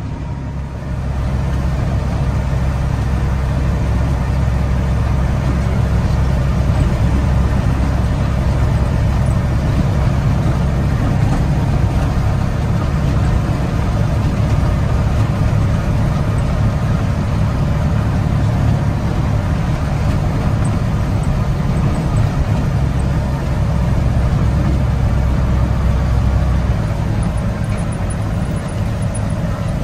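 Peterbilt grain truck's diesel engine running steadily as the truck drives, a loud low engine note that picks up about a second in and shifts near the end.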